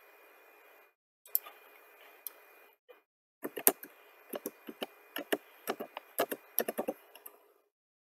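Computer keyboard and mouse clicks: a few scattered clicks in the first three seconds, then a quick run of keystrokes from about three and a half to seven seconds in as a number is typed into the command line.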